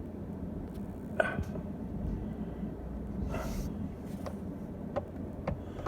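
Truck engine and road noise heard from inside the cab, a steady low rumble, with a few short knocks and rattles as it moves over rough pasture.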